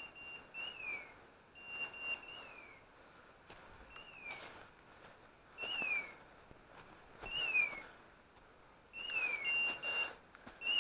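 Electronic beeper collars on hunting dogs sounding: a falling chirp repeating about every one and a half to two seconds, with a few short steady beeps between. Faint rustling of steps through dry leaves and grass underneath.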